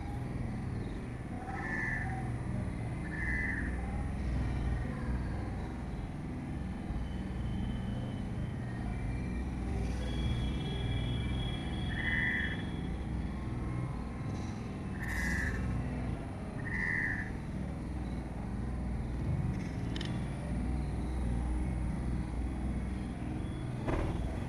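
Outdoor ambience: a steady low rumble with five short, high chirp-like animal calls scattered through it, and a sharp click near the end.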